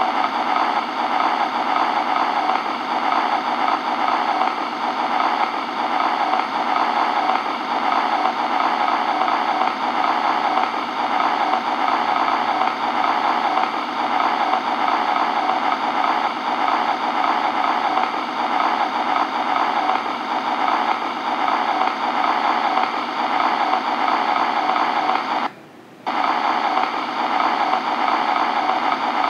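Steady static-like hiss with a fine flicker, laid under a vintage-film end title, cutting out for about half a second near the end.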